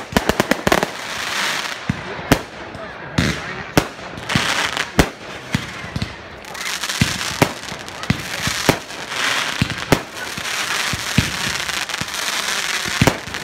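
Fireworks going off: an irregular string of sharp bangs from rockets and bursting shells, several in quick succession in the first second, with hissing and crackling between them.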